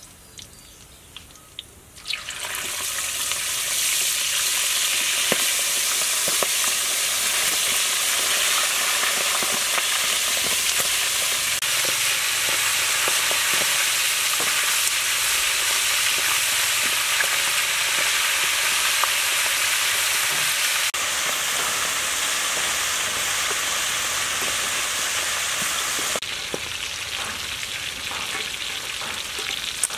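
Quail pieces deep-frying in hot oil in a wok: a loud, steady sizzle that starts suddenly about two seconds in, after a few faint clicks, and eases a little near the end.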